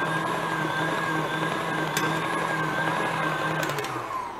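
KitchenAid stand mixer running with its wire whisk beating cake batter: a steady motor whine. Near the end the motor winds down, its pitch falling as it stops.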